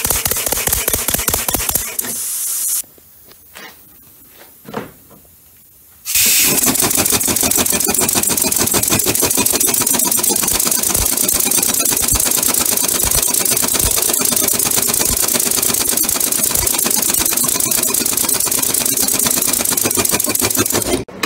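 Home-built multi-cylinder compressed-air engine with eccentric drive running fast on compressed air: a rapid, even clatter of valves and exhaust puffs over a hiss of escaping air. It stops about three seconds in, leaving a few faint knocks, and starts again about three seconds later, then runs steadily on.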